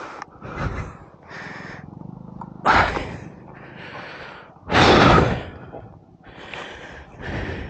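A man breathing hard and fast close to the microphone, about one breath a second, with two louder exhalations around three and five seconds in. He is out of breath after the exertion of getting his stuck motorcycle free.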